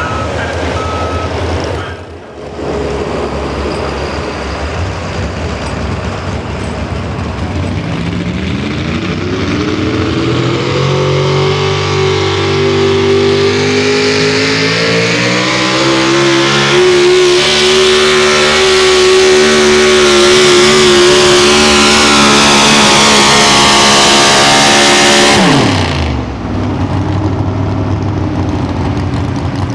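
Competition pulling engine running hard through a pull. Its pitch climbs steadily as it winds up, holds at full throttle for about eight seconds, then drops sharply near the end as the puller lets off, settling back to a lower running note.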